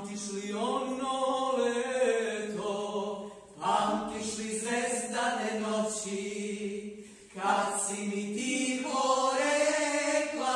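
A few voices singing together without accompaniment, in three long held phrases.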